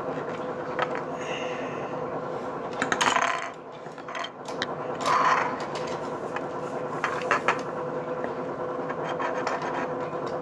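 Small plastic toy pieces handled and rolled on a wooden tabletop: rubbing and scraping with scattered clicks. The two loudest scrapes come about three and five seconds in, over a steady hum.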